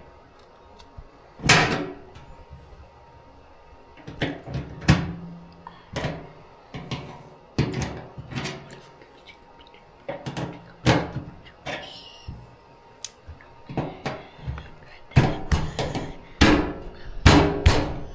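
Irregular metal clanks and knocks from hand tools and car parts being worked, some ringing briefly, coming faster near the end.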